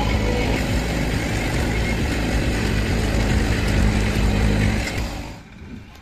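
Diesel engine running steadily close to the microphone, with a deep rumble. The sound drops away abruptly a little after five seconds in.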